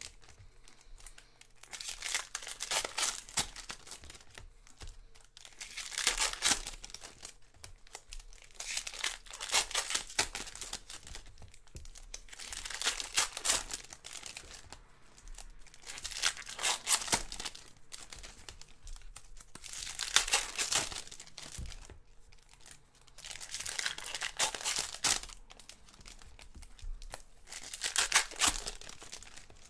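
Foil wrappers of Topps Chrome baseball card packs being torn open and crinkled one after another, a burst of crinkling every three to four seconds.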